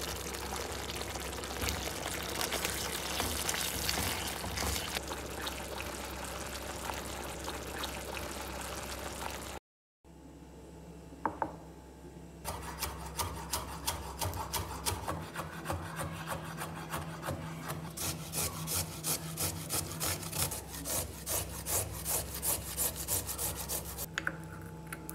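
A wooden spoon scraping and mashing softened butter against a small bowl in quick, regular strokes, several a second, through the second half. Before a short cut to silence, a steady hiss with faint scraping fills the first half.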